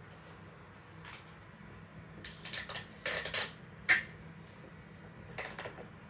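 Paper rustling and crinkling as a handmade paper gun and a rolled paper tube are handled, in a few short bursts about two to four seconds in, ending in a sharp tap, with a softer rustle a little later.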